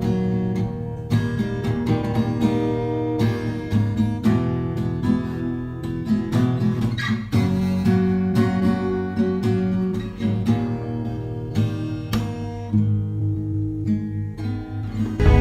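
Background music: acoustic guitar playing with plucked and strummed notes.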